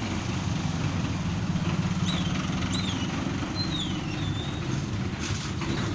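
Diesel engine of a container truck running close by, a steady low rumble. A few short high squeaks come through about two to four seconds in.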